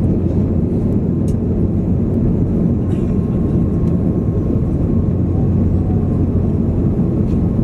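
Steady low rumble of an Airbus A330-300's Rolls-Royce Trent 700 engines and airflow, heard from inside the passenger cabin, with a faint steady whine above it.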